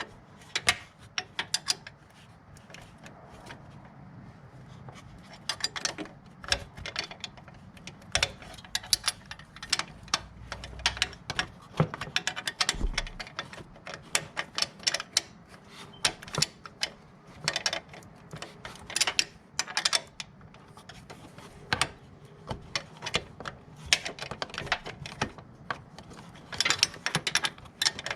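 Ratchet wrench clicking in short, irregular bursts of quick clicks.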